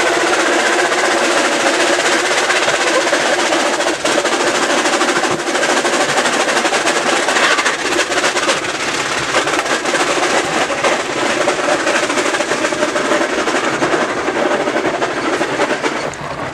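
Peugeot 306 being towed fast up a rough lane, heard from inside the cabin: loud steady road and tyre noise with dense clattering rattles, and a steady drone that fades after about half way. It grows quieter near the end.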